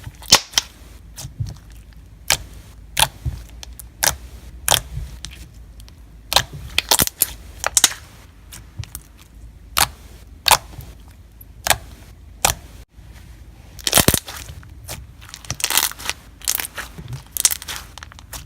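Thick, glossy slime with jumbo and mini foam beads being squished and stretched by hand, giving irregular sharp clicks, pops and crunches, with a few longer crackling stretches about two-thirds of the way through.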